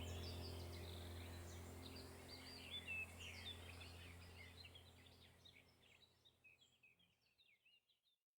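Small birds chirping and warbling over a steady low hum, both fading out gradually to silence near the end.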